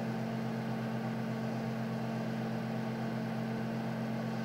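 A steady low hum with several held low tones, unchanging throughout.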